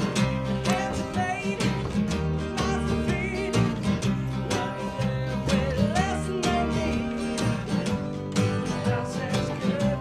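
A band playing a country-style song with acoustic guitar and a steady beat.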